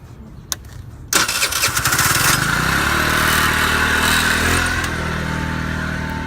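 A vehicle's engine starting: it fires about a second in, flares up loudly, then settles into a steady idle.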